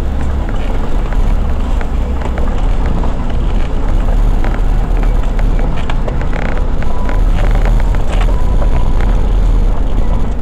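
A 4x4 (a Ford Maverick) driving slowly over a rough, muddy off-road track: a steady low engine and road rumble with scattered knocks and rattles as it goes over bumps.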